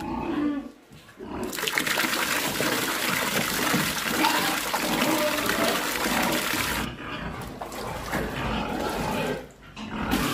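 Tap water running and splashing into a plastic bucket of bran mash as it is stirred with a wooden stick. The water starts about a second and a half in, and the splashing turns duller about two-thirds of the way through.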